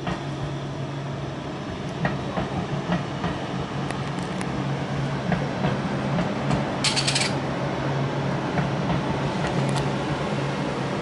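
Train at a railway station, a steady low hum with scattered clicks, and a short high hiss about seven seconds in.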